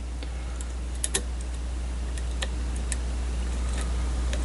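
Faint, irregular clicks of lock picks working the pins of a pin-tumbler challenge lock that is sitting in a false set, over a steady low hum.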